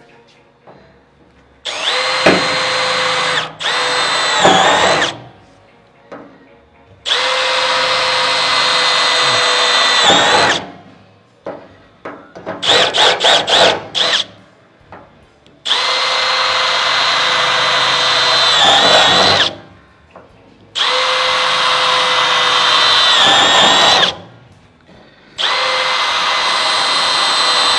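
Cordless drill boring holes through the sheet-steel cowl panel for spot welds: five runs of a steady high whine, each a few seconds long and several dipping in pitch near the end, with a quick stutter of short trigger pulses about halfway through.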